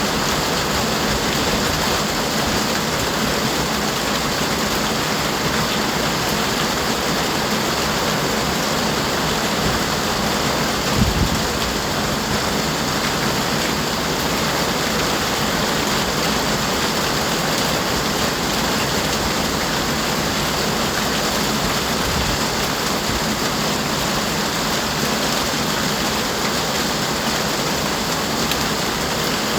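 Steady rain falling, an even hiss of many drops. About eleven seconds in there is a brief low thump.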